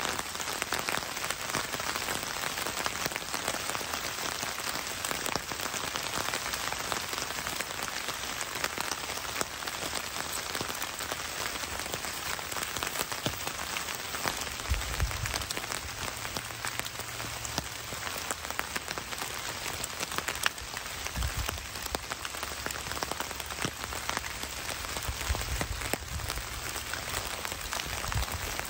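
Steady rain pattering on a forest floor of dead leaves, a dense even spray of drops. A few dull low thumps come in the second half.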